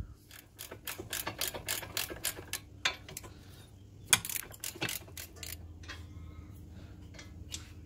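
Socket ratchet clicking in quick strokes, about five a second, as the 19 mm brake caliper bracket bolts are undone, followed by a few louder separate metallic knocks.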